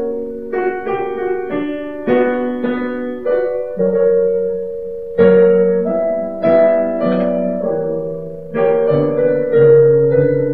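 Piano playing slow chords, each struck and then fading, over a bass line that steps gradually down: offertory music during the Eucharist.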